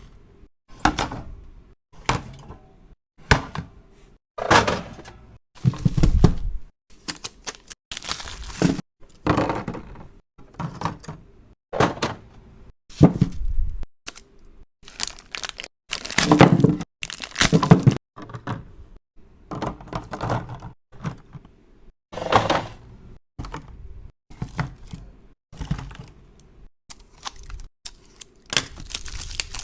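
Items being set down and stacked one on another, a long irregular series of thunks and knocks roughly one or two a second, some louder than others.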